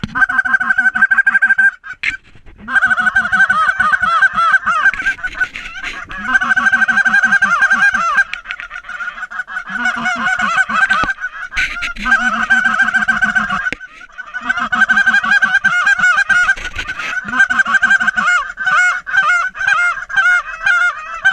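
Loud goose honking: fast, overlapping honks in several long runs, broken by short pauses.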